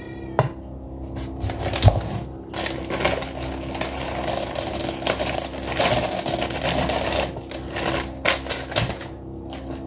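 Rapid clicking and rustling of a packet and a metal kitchen tool being handled and worked open, in dense bursts over a steady low hum.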